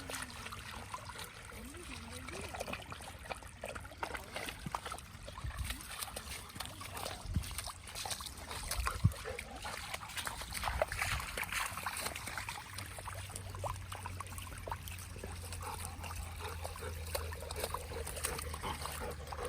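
Shallow water trickling, with irregular small splashes of a dog moving about in it.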